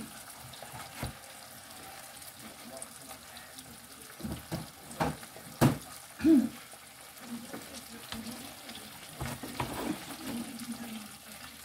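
Kitchen clean-up clatter: a few sharp knocks and thuds of things being handled and put away, loudest about halfway through, over a faint steady hiss.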